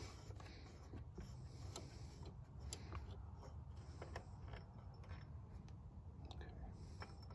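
Faint scattered clicks and light scrapes of hands handling a replacement diesel fuel injector in a 7.3 IDI engine bay, heard over a low, faint hum.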